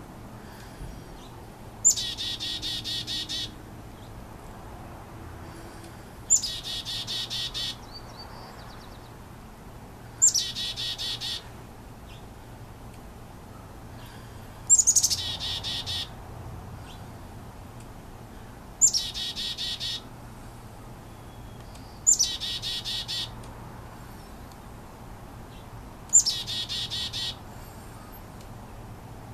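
Chickadee giving its chick-a-dee call, a sharp high note run into a buzzy string of dee notes, repeated seven times, about once every four seconds.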